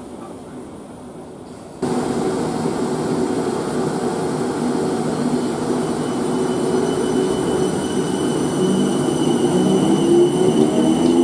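South Western Railway electric multiple unit moving along the platform: a steady rumble of wheels on the track, louder from about two seconds in. Over the last few seconds a motor whine climbs in pitch as the train gathers speed.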